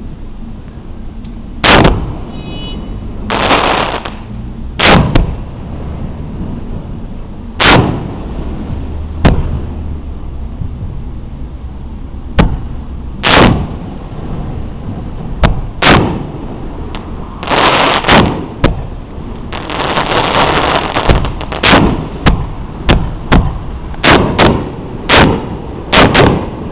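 Aerial fireworks bursting: a series of sharp bangs, a few seconds apart at first and coming faster near the end, with a few longer crackling stretches among them, over a steady low rumble.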